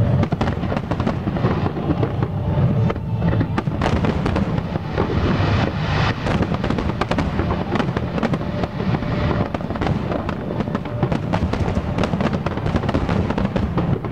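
Fireworks display: many shells bursting in quick succession, a dense, unbroken run of bangs with no gaps.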